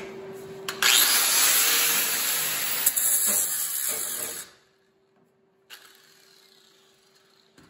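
Electric angle grinder switched on about a second in, running against steel and grinding down a spot of weld that the patch panel is catching on, then stopping about four and a half seconds in.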